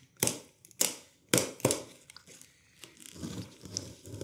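Plastic packing straps around a large cardboard box cut through one after another: four sharp snaps in the first two seconds. From about three seconds in, a utility knife scratches as it slices the packing tape along the box's top seam.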